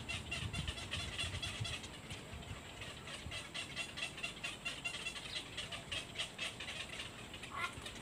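Outdoor background sound: a low rumble that fades over the first two seconds, under a steady, rapid high chirping, with one short call about seven and a half seconds in.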